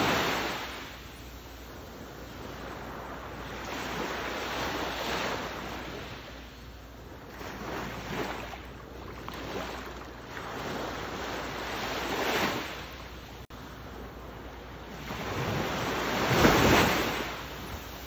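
Ocean waves washing in, in slow surges that swell and fade every few seconds, the biggest surge coming near the end.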